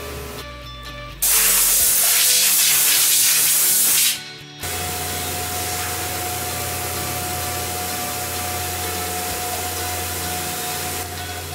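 A loud spraying hiss for about three seconds. Then a Tormach CNC mill's spindle runs with a steady whine as a small end mill cuts into pumpkin flesh, with music underneath.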